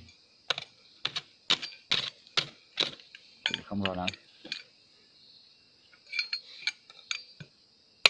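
Sharp repeated knocks of a tool striking wood, about two a second for three seconds, then a few lighter taps near the end.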